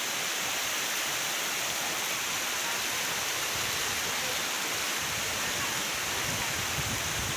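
Floodwater rushing past, a steady, even wash of noise; a low rumble joins in about five seconds in.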